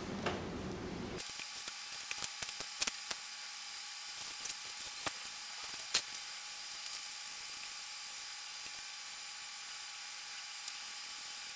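Faint, irregular clicks and ticks of marine vinyl being cut and handled on a workbench, over a steady hiss.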